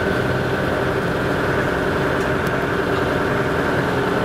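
Steady engine drone and road noise of a moving road vehicle, heard from inside its cabin.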